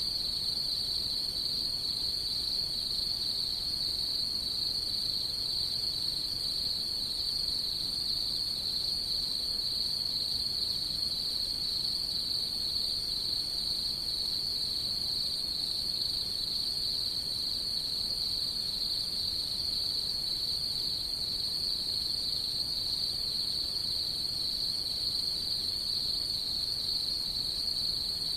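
Autumn night insects trilling in a steady, unbroken chorus at one high pitch.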